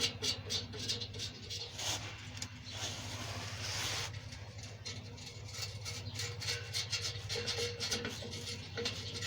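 Hand tools working on exhaust pipe fittings under a vehicle: a string of sharp metallic clicks, clinks and scrapes, over a steady low hum.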